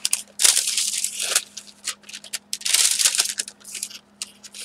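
Paper being handled: crinkling and rustling in two longer bursts, with a few short clicks and taps between them.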